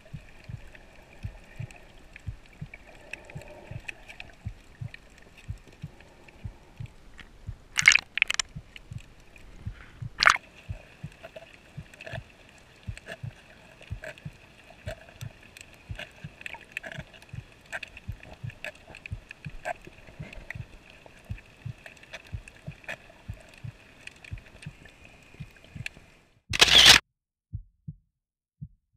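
Underwater sound picked up through a sealed underwater camera housing while snorkeling: muffled, irregular low thumps several times a second over a faint steady whine. Loud rushing bursts come about eight and ten seconds in, and a longer one near the end, after which the sound cuts out.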